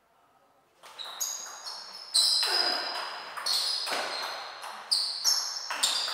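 Table tennis rally: the ball clicking sharply off bats and table, each hit with a short high ringing, in quick succession at roughly two or three hits a second, starting with the serve about a second in.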